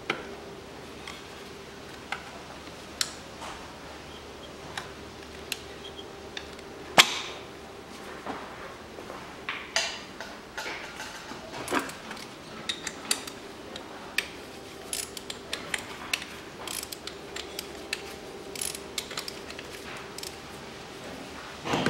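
Scattered clicks and knocks of hand tools and plastic connector clips being worked on top of a car engine while the ignition coils are taken off for a spark plug change. The clicks are sparse at first and come thicker later, with one sharper knock about seven seconds in.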